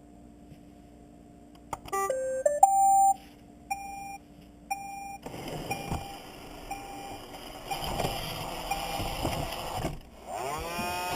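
Roomba robot vacuum playing a short rising electronic start-up tune, then beeping about once a second. About five seconds in its motors start with a steady whir, and near the end a rising whine as a motor speeds up.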